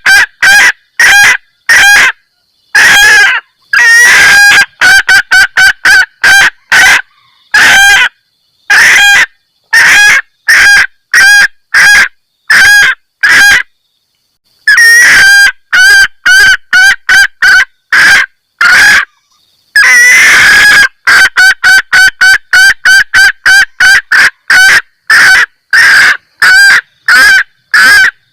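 Female junglefowl giving its 'kekkek' mating call, the call hens use to draw males: loud, sharp cackling notes repeated in quick runs of about three a second, broken by short pauses.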